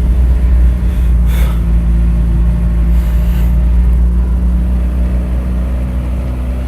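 Steady low rumble of a motor vehicle engine running, with a brief hiss about a second in and another around three seconds.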